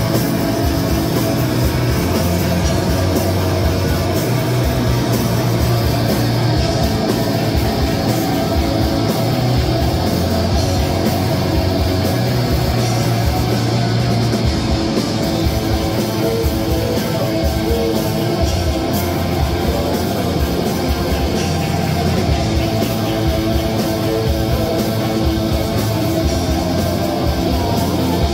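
A live rock band playing loud and without a break: electric guitar, bass guitar and drum kit together.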